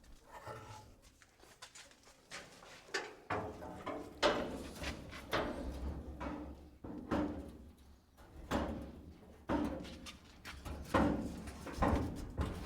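Repeated knocks and scraping of the steel truck cab being pried and lifted off its old floor pan, about one every second or so and getting louder.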